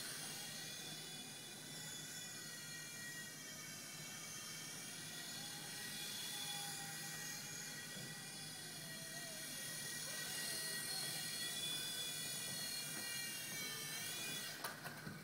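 WLtoys V911 Pro micro RC helicopter flying: a steady high whine from its small electric motor and rotor, the pitch wavering slightly with the throttle. Near the end the whine dips and cuts off, followed by a few light clicks.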